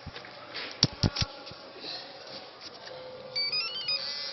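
RFID hotel door lock: three sharp clicks about a second in, then near the end a short electronic tune of quick beeps climbing in pitch, the lock's chime.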